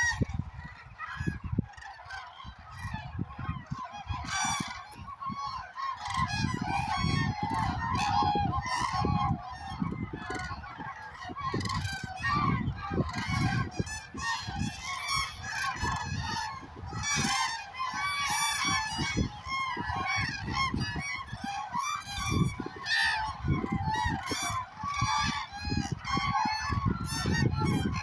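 A large flock of common cranes calling, with many loud trumpeting calls overlapping without pause. A low rumble comes and goes beneath the calls.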